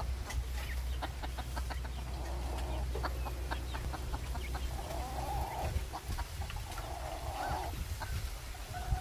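Long-tailed white rooster clucking, with two longer drawn-out calls past the middle, over a steady low rumble of wind on the microphone.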